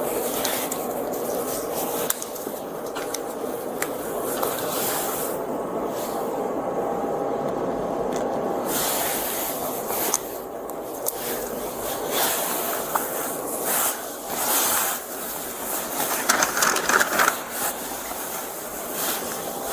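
Steady rumble and hiss of a rail car, with irregular rustling and scraping handling noise close to the microphone, heavier in the second half.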